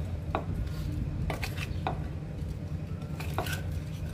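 A spoon clinking and scraping against a glazed clay bowl as chopped raw mango and carrot pieces are tossed with coarse pickle spices: about half a dozen short knocks spread over the few seconds, over a steady low hum.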